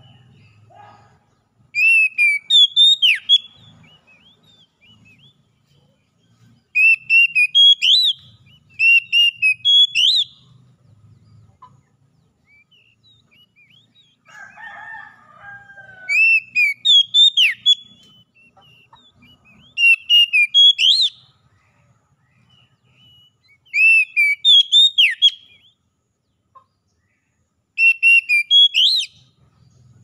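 Oriental magpie-robin singing: loud, clear whistled song phrases, each a second or two long, repeated every few seconds. A lower, shorter call is heard once about halfway through.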